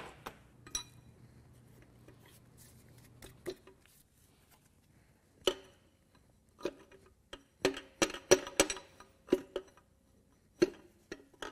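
Metal engine parts, connecting rods and bearing caps, clinking and knocking as they are handled and set down. Scattered taps with a short metallic ring, busiest about eight seconds in.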